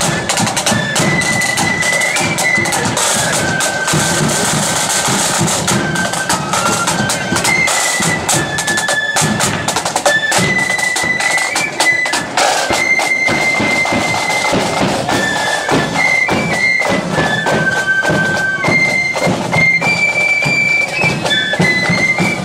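A marching flute band playing a tune: a rank of flutes carrying the melody in unison over rattling snare drums, a bass drum and clashing cymbals.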